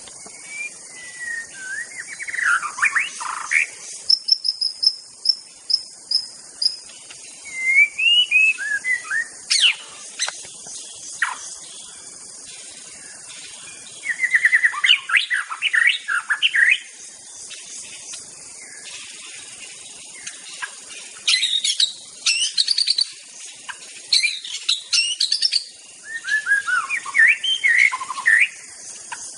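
White-rumped shama singing: varied phrases of whistles, sliding notes and quick trills, with short pauses between them, over a steady high insect hiss.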